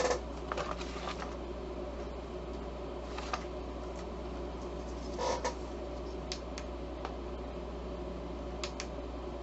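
Scattered small clicks and taps of buttons being pressed on a handheld voice amplifier, a few in quick succession at the start and then one or two every second or two, over a steady low hum and faint hiss.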